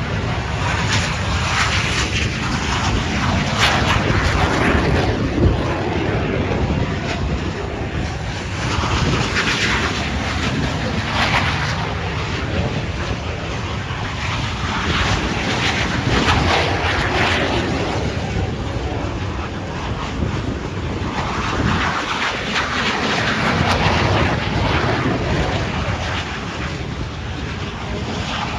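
Aircraft engine noise from a plane flying at an air show, a dense steady rush that swells and eases several times.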